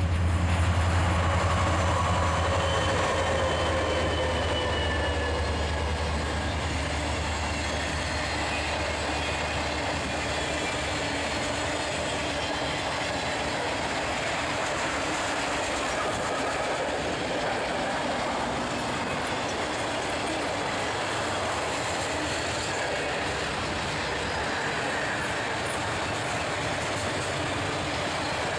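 A Norfolk Southern freight train passing close by. The diesel locomotives' deep engine drone is loudest at first and fades over the first several seconds. A long, steady rumble of freight-car wheels on the rails follows, with faint wheel squeal.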